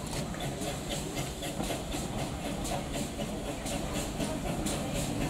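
Steam tank locomotive and its carriages approaching at low speed: a steady rumble with hissing steam and regular clicks from the wheels and rails, growing louder toward the end.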